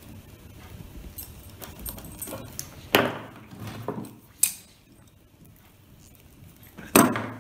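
Handling noise from wiring work: wires and small parts are moved about, with scattered clicks and rustles and a few sharper knocks. The loudest knocks come about three seconds in and near the end.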